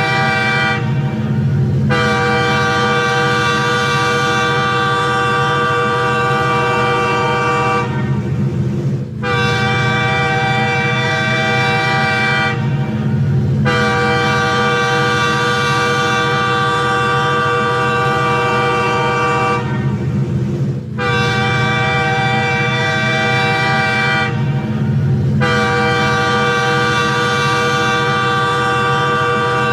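Train horn sounding a series of long blasts, each held for several seconds, with short breaks between them, over a steady low rumble.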